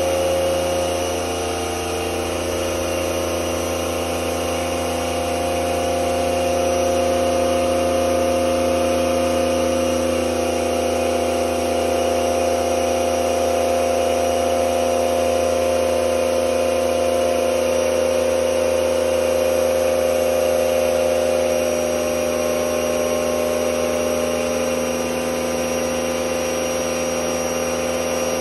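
Pump running steadily to pressurise a handpan hydroforming rig, a constant machine hum with several steady tones while the water pressure domes the steel sheet of the handpan shell.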